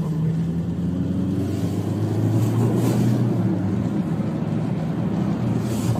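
Car engines running at speed, heard from inside a car's cabin: a steady engine drone holding a nearly level pitch over road and wind noise.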